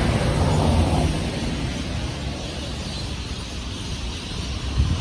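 A van drives past close by on a street, loudest in the first second, leaving a lower steady traffic rumble.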